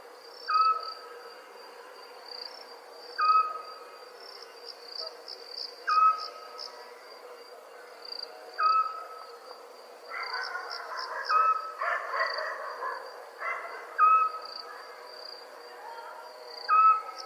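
Night ambience of crickets chirping steadily, with a short clear animal call repeating about every two and a half seconds. A rougher, noisier burst of calling comes a little past the middle.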